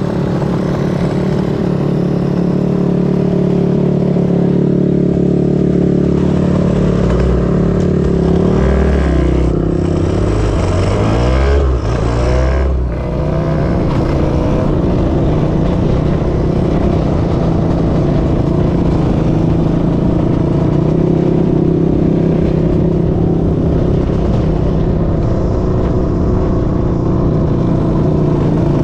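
Drag-racing motorcycle engines running at the start line, with rising and falling revving in the middle.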